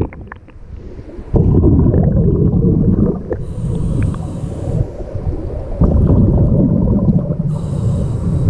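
Scuba diver breathing through a regulator underwater: twice a bubbling low rumble of exhaled air lasting a couple of seconds, each followed by the hiss of an inhalation through the regulator.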